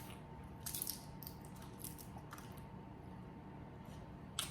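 Boiled crawfish being peeled and eaten: faint cracks of shell and wet squishing, a cluster of crackles about a second in and another near the end.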